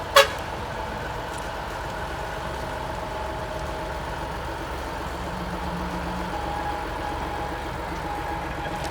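A railway locomotive running steadily, with a few held tones over a steady noise and a faint regular pulse in the second half. A single sharp knock comes just after the start.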